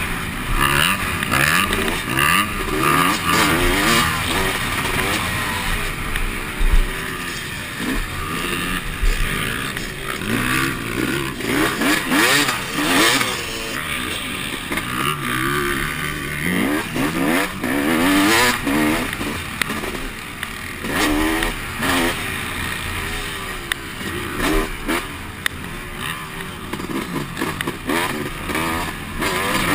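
Dirt bike engine heard from the rider's helmet, revving up and falling back again and again as he accelerates, shifts and rolls off through the turns of a motocross track.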